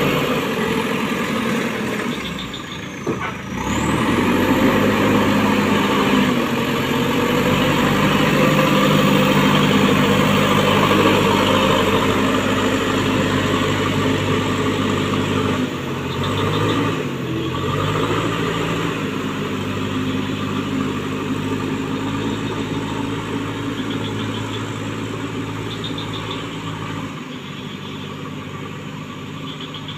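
JCB backhoe loader's diesel engine running as the machine drives away with a loaded front bucket, its pitch dipping and rising again about halfway through and the sound growing fainter toward the end.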